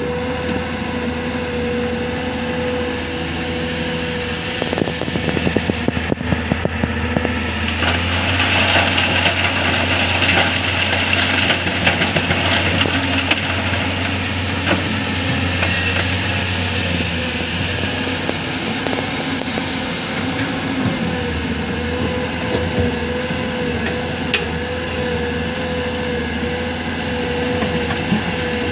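Excavator diesel engine and hydraulics running, with a wavering whine over the engine hum. A run of knocks and clatter comes about five to seven seconds in, then the machine works harder and louder for several seconds before easing back.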